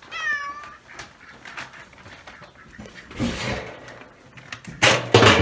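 A cat meows once, a falling call right at the start. Then come short bursts of scraping or rustling noise, the loudest near the end.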